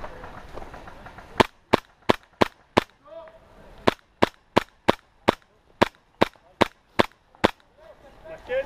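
Airsoft gun fired in single shots, about three a second: five sharp cracks, a short pause, then ten more.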